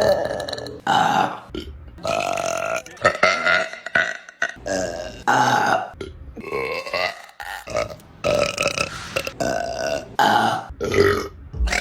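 Women burping one after another, about a dozen separate burps of different lengths and pitches, each cut off sharply before the next begins.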